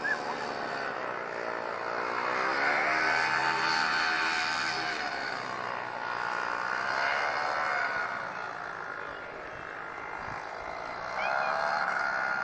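Paramotor engine and propeller buzzing overhead, its pitch rising and falling several times as the machine flies past and the throttle changes. Loudest a few seconds in and again near the end, with a quieter dip shortly before that.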